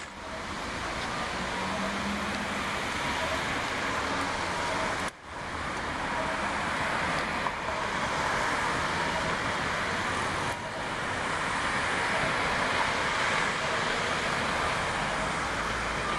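Road traffic: cars passing through a town intersection, a steady wash of tyre and engine noise. The sound drops out for a moment about five seconds in and dips again about ten and a half seconds in.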